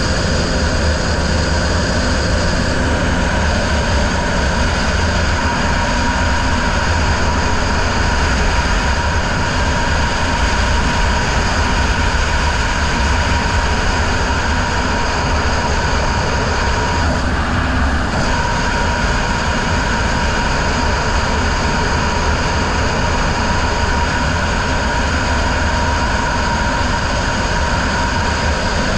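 Racing riverboat's outboard motor running steadily at high speed, with wind buffeting the helmet-mounted microphone.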